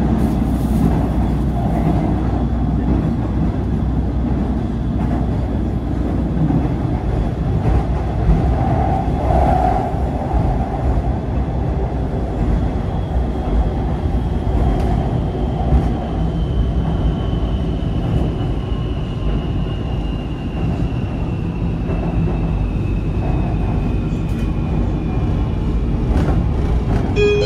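Metro train running: a steady low rumble, with a faint high whine that slowly falls in pitch through the second half.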